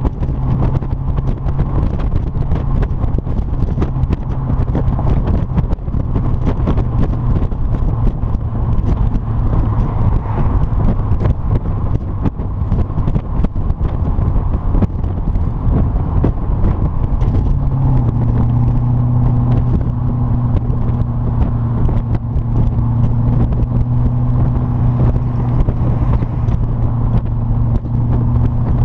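Triumph TR7's 3.9-litre Rover V8 running steadily through a single-bore exhaust, holding one even note that steps up slightly about eighteen seconds in.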